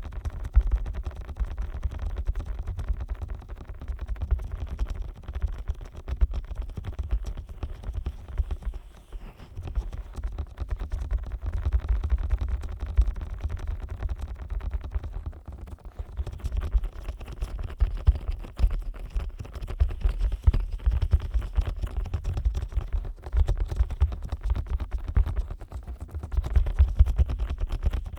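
Fingers rubbing and tapping directly on the silicone ears of a 3Dio binaural microphone, slick with Vaseline: a dense, close crackle of small contact noises over a deep rumble, easing briefly twice.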